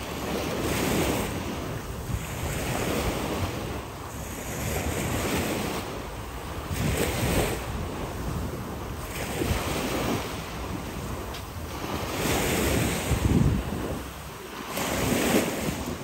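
Sea waves washing onto the beach, the surf swelling and fading every two or three seconds, with wind buffeting the microphone.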